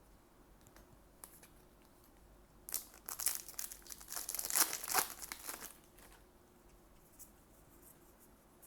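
A trading-card booster pack wrapper being torn open and crinkled, a busy crackling that lasts about three seconds, starting near three seconds in.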